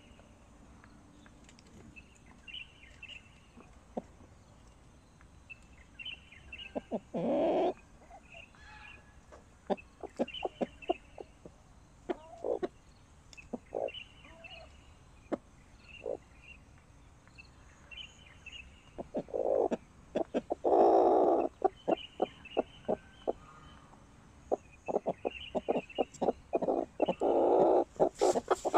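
Sanhuang hen clucking in a nest box: runs of short, low clucks, with louder, drawn-out calls about seven seconds in, around twenty seconds, and near the end. Faint high chirps sound now and then in the background.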